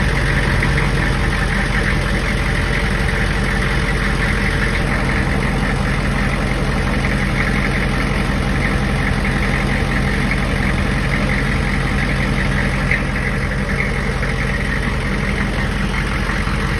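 Hummer H1's engine idling steadily, a low even hum with a fast light clatter above it.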